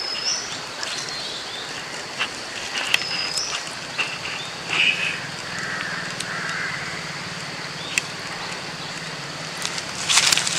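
Outdoor rural background: birds give two short rising chirps near the start and about three seconds in, with a few softer calls in the middle, over a steady faint hiss. There are occasional sharp clicks, and a low distant hum comes in about four seconds in.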